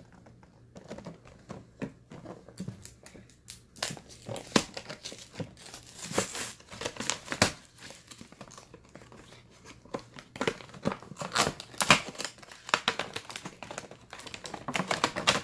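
A toy truck's retail box being opened by hand: cardboard and clear plastic crinkling, rustling and tearing in irregular bursts, with sharp clicks and snaps as the packaging is worked loose.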